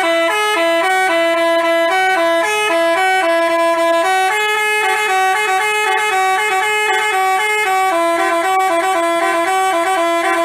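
Basuri telolet bus horn playing a quick tune of clear, stepped notes, two notes sounding together.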